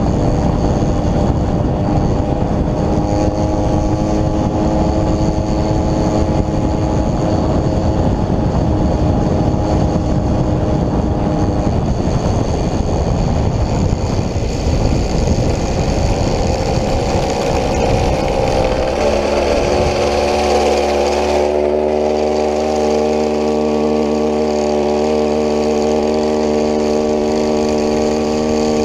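Homelite two-stroke chainsaw engine driving a motorized bicycle through a friction roller, running steadily under heavy wind rumble on the microphone. About two-thirds of the way in the wind rumble falls away and the engine settles to a different steady pitch.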